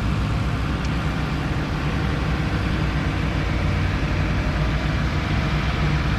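Backhoe's diesel engine running steadily, a low, even drone.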